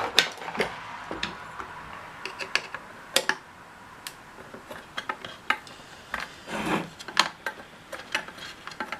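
Scattered light clicks and taps, irregularly spaced, from an opened power supply and its parts being handled, with one duller, longer knock or rustle a little before the seventh second.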